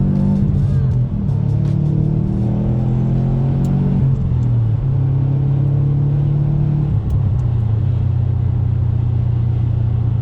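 Subaru WRX STI's turbocharged 2.5-litre flat-four engine running while driving. Its note shifts pitch several times as the revs change, dropping clearly about seven seconds in.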